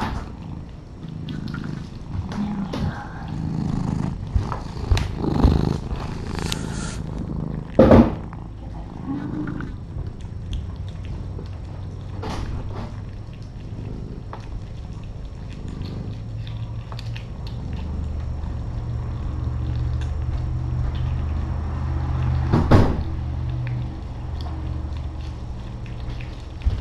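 Cat purring, a steady low rumble that grows stronger in the second half. Two sharp knocks stand out, one about 8 seconds in and another near 23 seconds, with lighter clicks in between.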